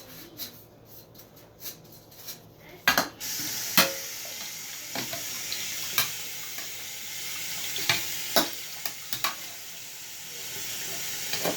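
Water running from a kitchen tap into the sink, starting about three seconds in as a steady hiss, with dishes clinking and knocking against each other as they are washed.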